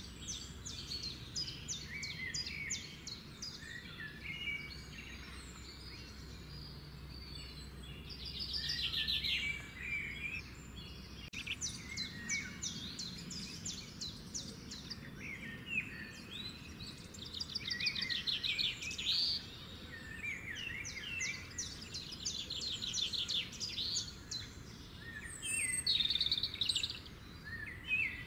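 Songbirds singing: repeated rapid high trills and short chirps, over a faint low hum.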